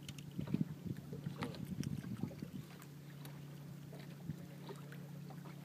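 Boat's outboard motor running steadily at trolling speed, a low even hum, with a few irregular knocks and splashes over the first couple of seconds.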